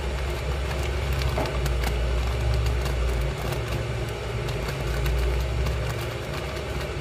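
Steady low mechanical rumble of a motor or fan, with faint crinkling and ticking from a foil packet as coconut-milk powder is tipped out of it into a mug.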